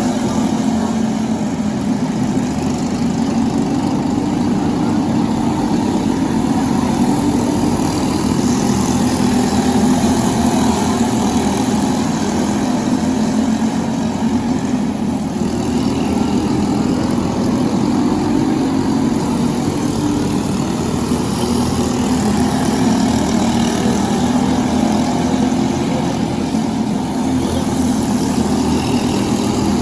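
Briggs & Stratton LO206 four-stroke kart engine running steadily at speed, its pitch wavering gently up and down.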